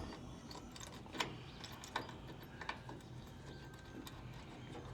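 A few light, sharp clicks and taps of small metal hardware being handled and fitted: bolts and pins against the steel tensioner parts, over a faint low background hum.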